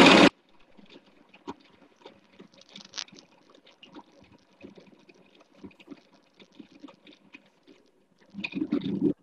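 Food processor blending soaked dates and cashews into a paste. The motor noise is loud at the very start and cuts off abruptly, then comes through only as a faint, broken crackle, with a louder burst near the end.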